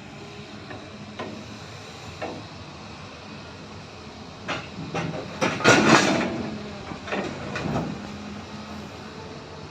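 Freight train being unloaded: a steady hum and hiss, with scattered metallic knocks and clanks that bunch into a loud cluster about five to six seconds in.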